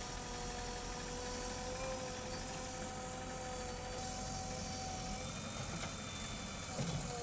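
JCB backhoe loader's diesel engine running steadily under a low rumble, with a steady whine over it that fades out about five seconds in. A short clatter comes near the end.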